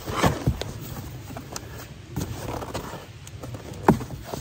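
Rustling, scraping handling noise of a large cardboard box being unpacked and the wrapped sleeping bag pulled out, with scattered clicks and a sharp knock about four seconds in.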